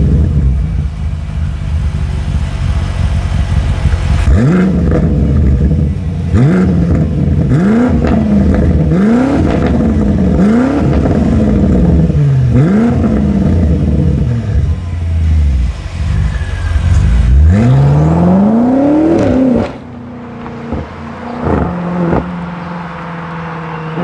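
BMW M5 F90's 4.4-litre twin-turbo V8 being revved while the car stands still, heard from behind the quad exhausts. It gives a series of quick revs, each rising and falling in pitch, then a longer climb, and after that drops suddenly to a lower, steadier engine note.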